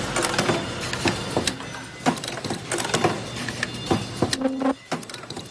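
Automatic ultrasonic ear-loop mask welding machine running: a fast, irregular clatter of clicks and knocks from its pneumatic cylinders and mechanism over a steady hiss.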